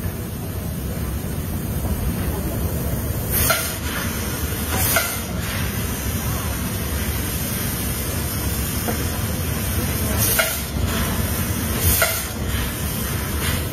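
Eagle 30 kW fiber laser cutting 20 mm stainless steel: a steady rushing hiss and rumble of the cutting head at work, broken by five short, louder hissing blasts, one of them throwing a spray of sparks from the cut.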